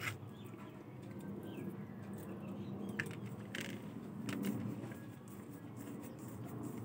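Faint sounds of eating rice by hand from a plate: a few small clicks and rustles over a low steady background hum.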